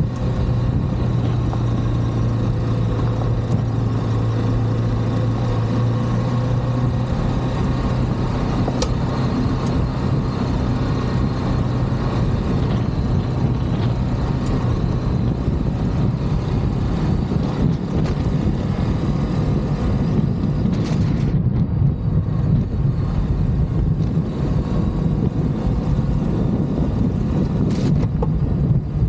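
Ducati DesertX's 937 cc V-twin running under way on a gravel track. The engine holds a steady note for about the first half, then goes less even as the throttle varies.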